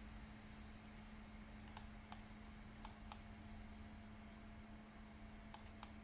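Near-silent room tone with a low steady hum, broken by three pairs of faint computer mouse clicks, each pair about a quarter second apart.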